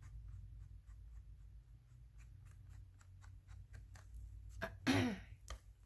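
Inking tool dabbed and rubbed along the edge of a paper journal page, a quick series of soft taps and scuffs at about three or four a second. A short vocal sound comes about five seconds in.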